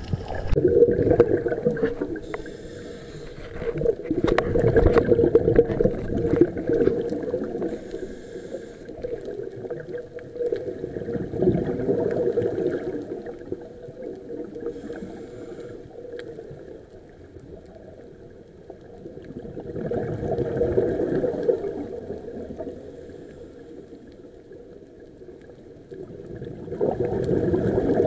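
Scuba diver breathing through a regulator underwater: a bubbling rush of exhaust bubbles comes every several seconds, about five times, with quieter stretches between.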